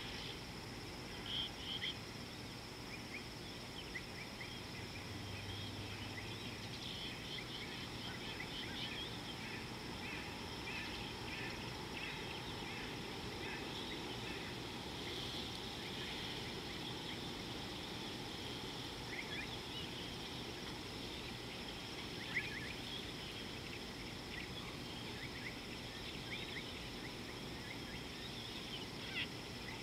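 Natural outdoor ambience: a steady high insect drone with many short bird chirps scattered through it. A low steady hum stops about seven seconds in.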